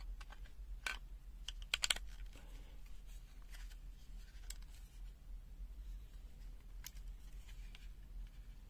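Faint, scattered plastic clicks from handling a pen-type multimeter while its AAA batteries are fitted and the battery compartment is closed: a quick run of clicks about two seconds in, then single clicks every second or two.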